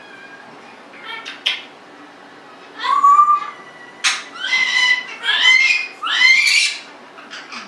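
Congo African grey parrot calling: one call about three seconds in, a sharp click, then three calls in quick succession, each rising in pitch, with a few soft clicks around them.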